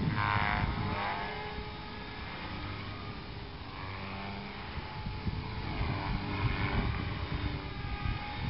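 Radio-controlled model helicopter flying overhead: its motor and rotor whine falls in pitch in the first second, fades, then swells again about six seconds in. Wind rumbles on the microphone underneath.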